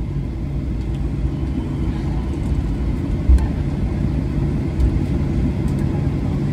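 Cabin noise of a Boeing 737-800 rolling out on the runway after landing: a steady low rumble from the wheels and engines, with a few low thumps, the loudest about three seconds in.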